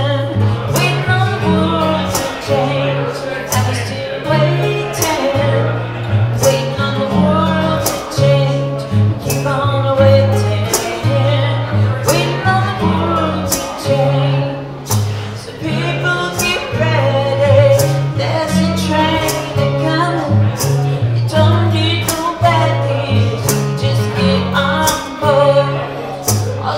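A woman singing a song while beating a hand-held frame drum in a steady rhythm, with acoustic guitar strummed and picked alongside her.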